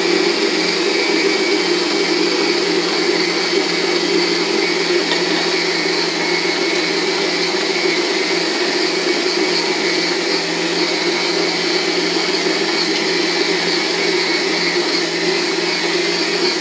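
Electric stand mixer running steadily on speed 1, its dough hook working flour and water into bread dough.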